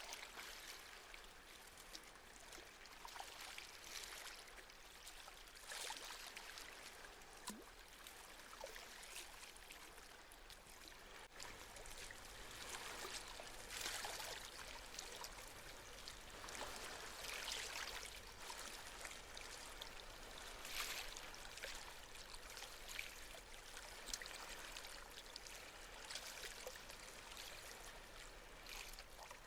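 Gentle sea waves washing in: a soft, steady hiss of water that swells and eases every few seconds.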